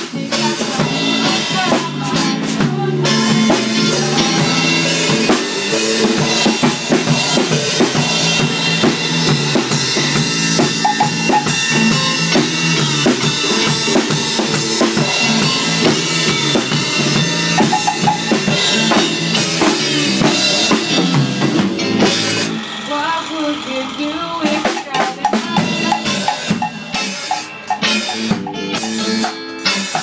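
Reggae music led by a drum kit with rimshots, snare and bass drum over a steady rhythmic bed. About 22 seconds in the mix thins out for a couple of seconds before the full band comes back.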